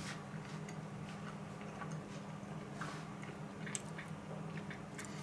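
Faint eating sounds: small clicks of a fork handled over a plate and soft chewing, a few scattered ticks over a steady low hum.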